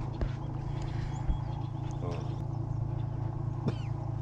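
Boat motor running with a steady low hum, with a few light knocks, the sharpest about a second in.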